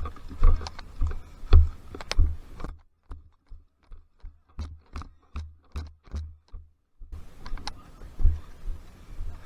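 Footsteps with gear rattling, heard from a body-worn camera, at a steady walking rhythm of about two or three dull thumps a second.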